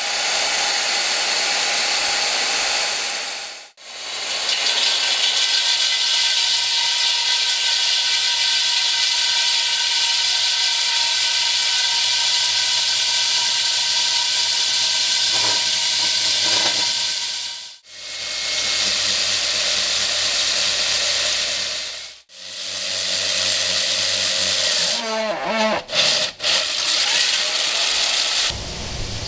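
AGP DM10/DM14 rig-mounted diamond core drill running in its lowest gear, the motor whining over a steady hiss as a 350 mm diamond core bit cuts wet into concrete. The sound breaks off briefly several times and drops to a quieter low hum near the end.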